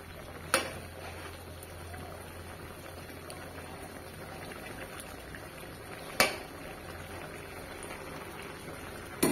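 Pork, pea and potato curry bubbling as it simmers in a wok. A spoon knocks sharply against the pan twice, about half a second in and about six seconds in.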